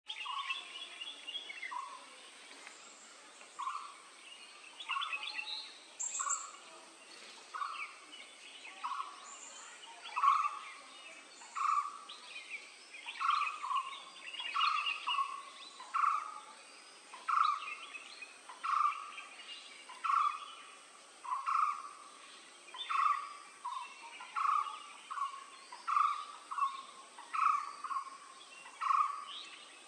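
Blue-throated barbet calling: a short low note repeated steadily, about once every second and a half at first and coming faster, nearly once a second, in the second half. Fainter higher chirps of other birds sound between the notes.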